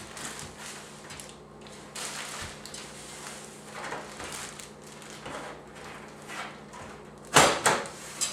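Handling of a steel PC case side panel: soft scrapes and small knocks, then a loud metal clatter near the end as the panel slides off the case.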